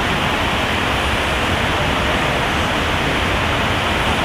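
Steady, even hiss-like rushing noise with no speech and no distinct events.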